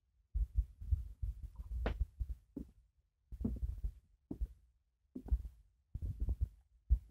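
Irregular low thuds and rumbles from footsteps and handling noise on a handheld phone's microphone, with short quiet gaps between them and one sharper click about two seconds in.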